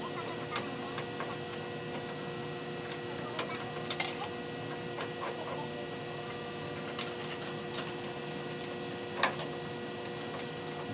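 Steady electrical hum with a few scattered light clicks and knocks. The loudest knocks come about four seconds in and again about nine seconds in.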